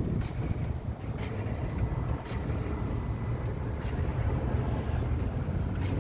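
Actuator at the wheels of a 2018 Mazda CX-5 clicking about once a second with the car switched off, over a low wind rumble on the microphone. The owner links this sound to the car's battery going dead and to lost-communication codes from the ABS and TCM.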